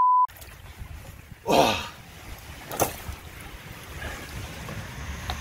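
A steady censor bleep that cuts off just after the start, then low wind noise on the microphone, with a short sound falling in pitch about a second and a half in and a single click near the three-second mark.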